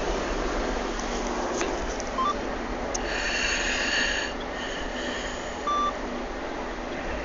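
Sleeping baby snoring, one long snoring breath about three seconds in, over the steady low rumble of the car. Two short beeps sound, one a little before the snore and one a little after it.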